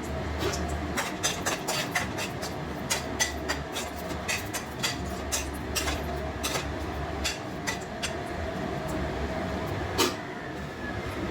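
A spatula clicking and scraping against a kadai as a tempering of bay leaf, dried chillies and panch phoron fries in hot oil, with irregular sharp knocks over a steady sizzling hiss and hum.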